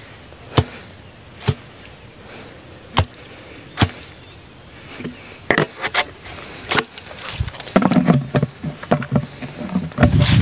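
A steady high insect drone of field insects runs underneath. Over it come sharp knocks about every second in the first four seconds, then rustling footsteps through dry grass in the last few seconds.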